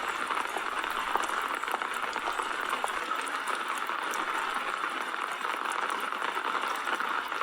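Steady rain: an even hiss of falling rain with scattered faint drop ticks.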